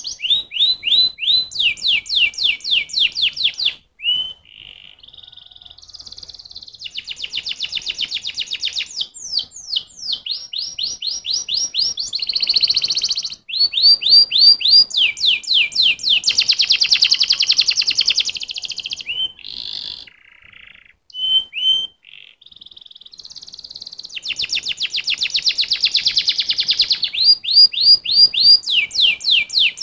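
Domestic canary singing a long song. It moves through runs of fast, identical repeated notes, switching to a new note every few seconds, with a few short pauses.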